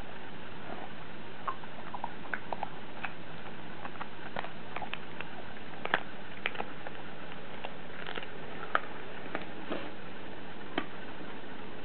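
A dog chewing a dried pig ear treat: irregular sharp crunches and clicks of its teeth on the hard, dry ear, loudest about six seconds in and again near nine, over a steady hiss.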